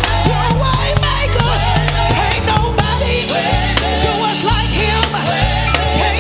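Live worship band music: a steady bass line and drums under a wavering lead melody.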